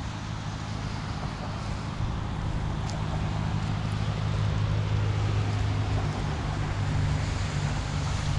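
A steady low engine hum over wind noise, slowly growing louder.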